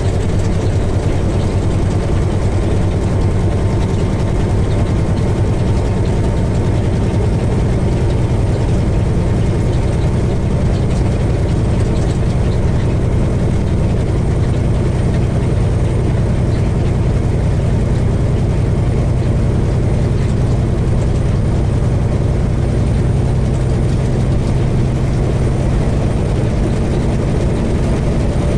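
Peterbilt semi-truck's diesel engine running steadily while the truck drives, heard from inside the cab as a constant low drone.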